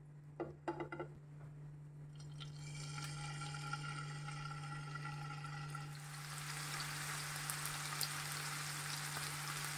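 Marinated prawns going into hot oil in a frying pan: the sizzling starts a few seconds in and grows louder and denser about halfway through as more prawns are added, under a steady low hum. A few light clicks come in the first second.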